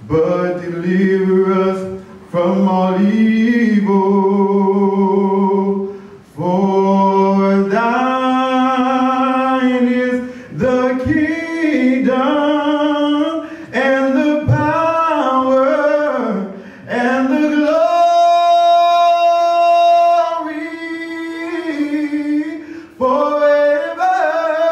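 A solo voice singing unaccompanied, holding long notes with vibrato and short pauses for breath between phrases, with the longest and loudest held note a little past the middle.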